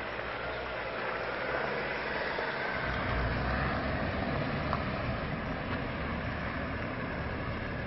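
Engines of police vans and SUVs running at low speed, a steady rumble with road noise that grows louder about three seconds in.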